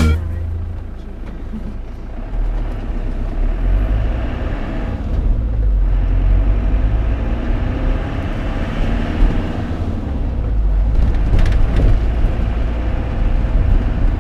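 Engine and road noise of a Hymer motorhome driving, heard inside the cab: a steady low rumble.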